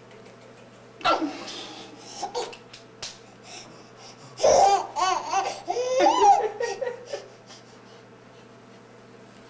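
A baby boy laughing: a short burst about a second in, then a long run of rising and falling giggles from about four and a half to seven seconds in, dying away after that.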